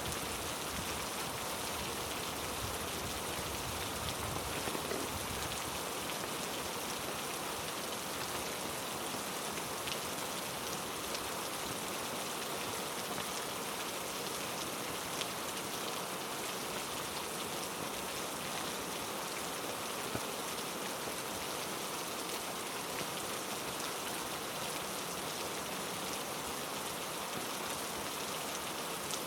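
Heavy rain falling steadily, an even hiss with a few louder drips here and there.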